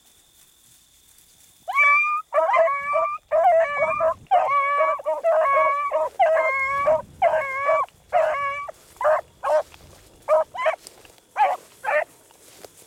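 A beagle baying close by: a run of about a dozen drawn-out, evenly pitched bawls starts about two seconds in and breaks into shorter, quicker barks near the end. It is a hound giving voice while running a rabbit's track.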